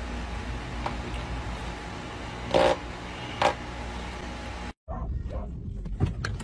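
Dog barking into a spinning electric fan, two short loud barks about a second apart over the fan's steady hum. Near the end the sound cuts out briefly and gives way to a noisier outdoor stretch with a vehicle.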